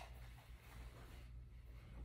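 Near silence: room tone with a steady low hum and a little faint rustling about half a second in.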